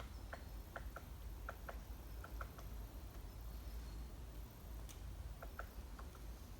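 Forest ambience with a bird giving short, sharp chip notes: a quick irregular run in the first two and a half seconds and a few more near the end, over a faint low rumble and thin, high distant calls.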